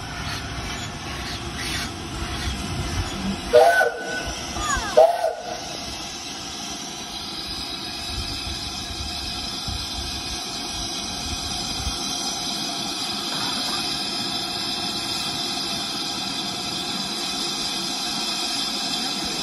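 BR Standard Class 5 4-6-0 steam locomotive running slowly. It gives two short blasts on its whistle about three and a half and five seconds in, with a low rumble, then keeps up a steady hiss of escaping steam.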